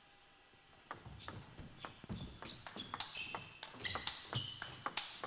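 Table tennis rally: the plastic ball clicking sharply off the bats and the table, back and forth in quick succession, starting about a second in.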